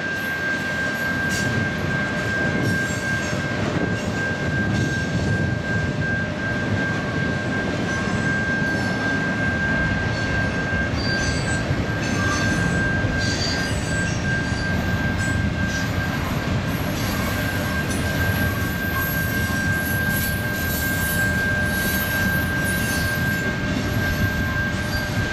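Freight train cars rolling past with a steady rumble and a steady high-pitched tone over it, plus scattered short squeaks and clicks in the second half.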